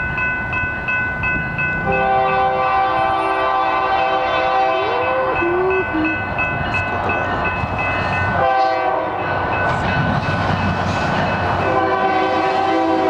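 Diesel locomotive's multi-chime air horn, which the railfan takes for a Nathan K3LA, blowing for a grade crossing. It gives a long chord from about two seconds in, a short blast after a brief break, and another long one near the end, over the rumble of the passing train. Before the horn starts, a crossing bell rings steadily.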